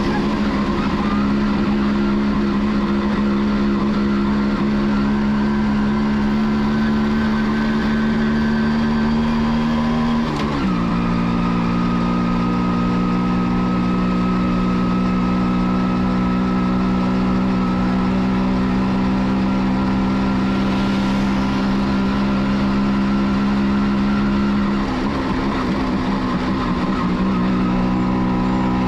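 1989 Kawasaki B1's two-stroke engine running steadily while riding. Its pitch drops suddenly once, about ten seconds in, and wavers and settles a little lower near the end.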